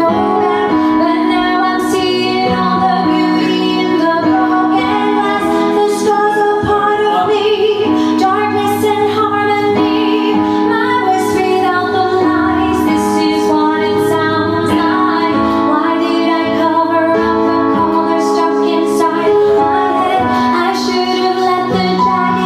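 A woman singing a song over instrumental accompaniment of held chords.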